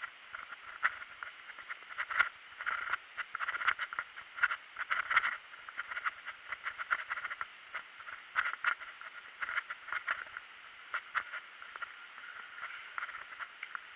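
Mountain bike rolling along a gravel path: a steady hiss of tyres on grit with frequent irregular rattles and knocks from the bike, thinning out near the end.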